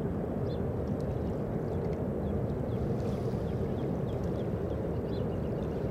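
Steady low rumble of a distant CSX mixed freight train rolling along the far shore, carried across the river, with a few faint high chirps over it.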